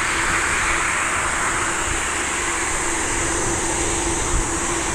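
Jet airliner engines heard as a steady rushing noise, with a faint steady hum underneath.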